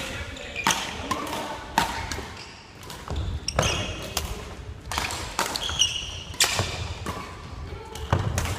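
Badminton doubles rally: sharp smacks of rackets striking a shuttlecock about once a second, mixed with shoe squeaks and footfalls on a wooden gym floor.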